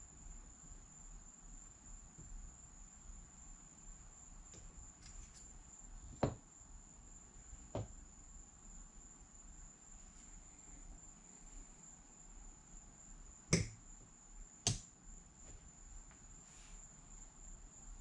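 Casino chips clicking as they are picked up and set down on a craps table: a handful of sharp, separate clicks, the two loudest about two-thirds of the way through. A faint steady high-pitched tone runs underneath.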